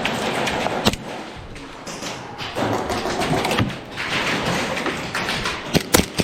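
Airsoft gunfire: sharp cracks and taps over busy background noise. There is a single crack about a second in and a quick string of shots near the end.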